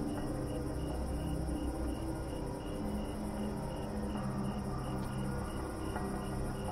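Night insects: a cricket chirping steadily about three times a second, with a continuous high insect buzz above it. Beneath them runs a steady low drone.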